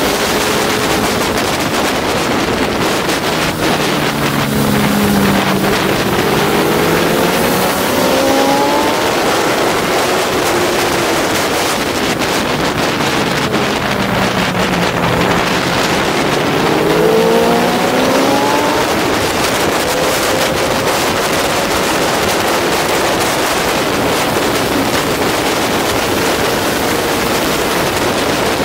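Honda CBR600RR's inline-four engine on track, its revs climbing twice and falling in between, under heavy wind rush on the microphone.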